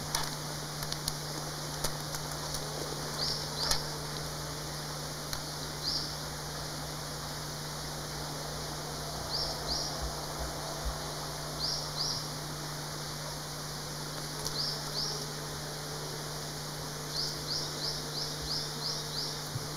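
Outdoor forest ambience: a bird giving short, high chirps in pairs and, near the end, a quick run of five or six, over a steady low hum and hiss.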